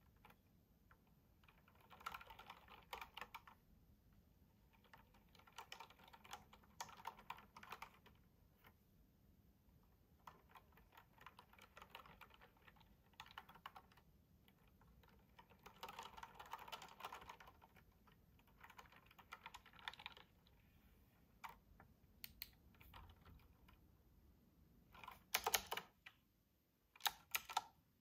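Typewriter-style mechanical keyboard with round retro keycaps being typed on: runs of rapid clicky keystrokes separated by short pauses, with two stronger flurries near the end.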